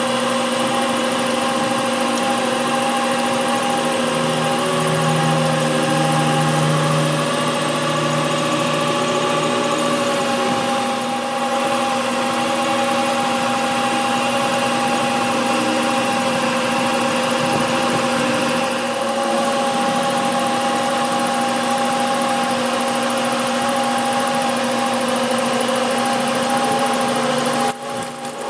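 Metal-working lathe running steadily, its motor and drive giving a constant hum with several steady tones over a haze of machining noise. The level drops briefly near the end.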